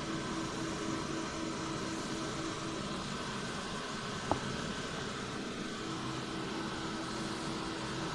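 Cooling fans of a Cisco Catalyst 4506 chassis switch (fan tray and 2800ACV power supplies) running: a steady rushing noise with a low steady tone. A single sharp click sounds about four seconds in.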